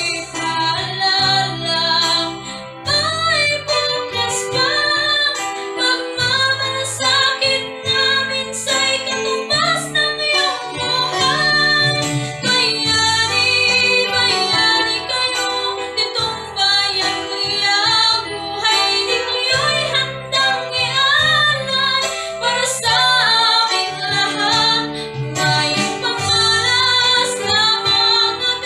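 A woman singing a Tagalog ballad with electronic keyboard accompaniment.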